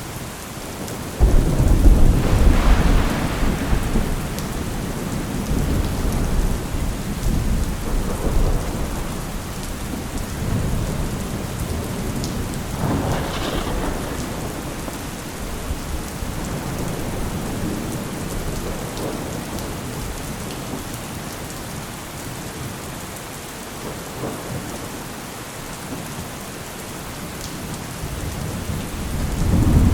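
Steady rain falling, with rolling thunder. A loud deep rumble breaks in about a second in and slowly fades over several seconds, a weaker rumble comes about halfway through, and another loud rumble builds near the end.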